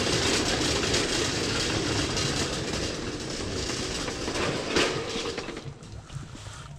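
A continuous rattling rumble, like something rolling over a hard floor, with a sharp knock a little under five seconds in; it dies away soon after.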